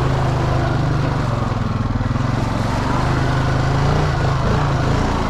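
ATV engine running steadily in first gear under light throttle, a low, even drone with a fast pulsing beat.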